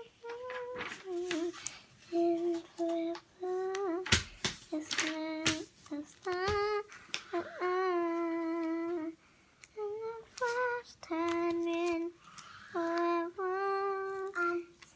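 A young girl singing a tune to herself in short phrases of long, held notes. Two sharp knocks come about four and six and a half seconds in.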